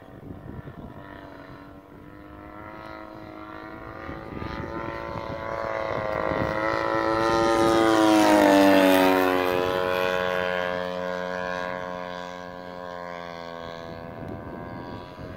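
Propeller-driven radio-controlled model airplane making a low flyby. Its motor and propeller tone grows louder, peaks about eight and a half seconds in as it passes overhead, then drops in pitch and fades as it flies away.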